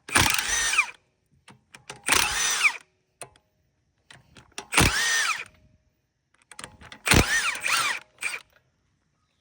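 Impact wrench loosening a car wheel's 17 mm lug nuts in four short bursts, each under a second, its motor pitch rising then falling as it hammers each nut loose.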